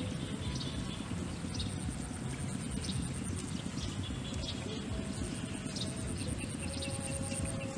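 Open-air ambience: wind rumbling steadily against the microphone, with a steady high-pitched pulsing trill and short chirps scattered through it.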